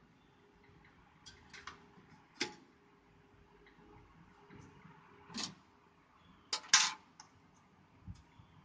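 Scattered sharp clicks and clacks of computer parts and a PC case being handled during assembly, with a double clack a little before the end.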